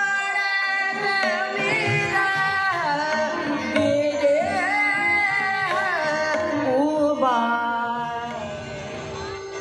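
A woman singing Indian vocal music into a microphone, her voice amplified and sliding through ornamented, gliding notes. Drum accompaniment comes in about a second in, and the music gets a little quieter near the end.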